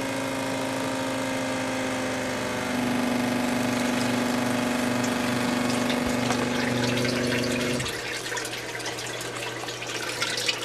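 12-volt DC Tuthill transfer pump running with a steady electric-motor hum that steps up in level about three seconds in, pumping biodiesel through a 10-micron filter. It cuts off suddenly about eight seconds in, leaving liquid trickling and dripping in small irregular splashes.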